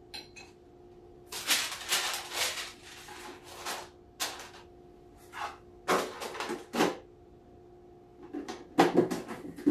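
Rustling and clatter of a cookie container being handled as a cookie is taken out and set down, in a string of short noisy bursts over a faint steady hum.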